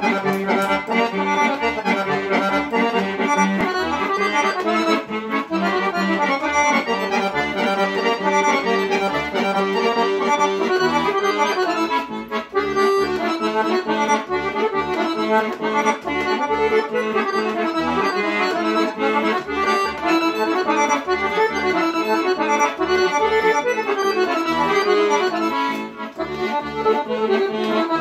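Sonola piano accordion playing a kolo, a Balkan folk dance tune: quick melody notes on the right-hand keys over regular bass notes, with brief dips about twelve seconds in and near the end.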